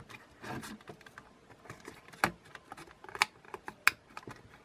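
A plastic pry card sliding and scraping under a drone's thin plastic shell, with scattered sharp plastic clicks and ticks as the cover, held by double-sided tape, is worked loose. The louder clicks come about two, three and four seconds in.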